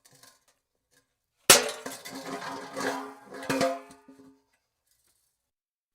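Metal car hubcap hitting concrete with a sharp clang about a second and a half in, then clattering and wobbling with a hollow ringing, with another burst of clatter about two seconds later before it settles and goes quiet.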